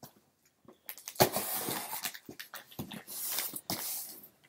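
A cardboard shipping box being opened by hand: a sharp tearing sound about a second in, then a few seconds of continuous rustling and scraping of cardboard and packing.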